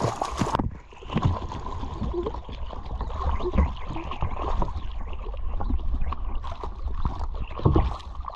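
Water splashing and sloshing close to the microphone as a swimmer moves through the river, with a loud splash in the first half second from an otter surfacing right beside it.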